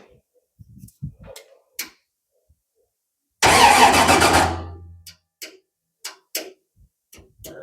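V8 Hotstox race car engine fires with a sudden loud burst about halfway through and dies away within about two seconds, started up to test a refitted alternator. Small clicks and knocks come before and after it.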